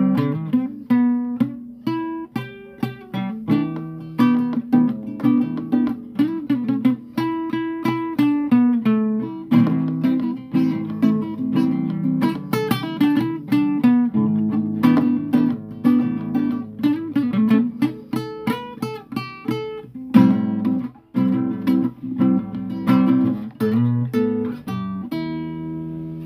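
Solo acoustic guitar playing an instrumental passage of picked notes and chords, the last chord ringing out and fading near the end.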